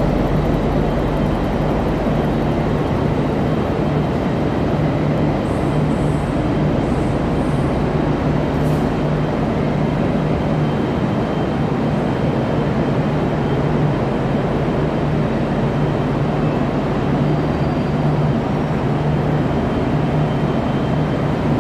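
V/Line diesel locomotive engine running steadily, a loud continuous drone with a strong low hum.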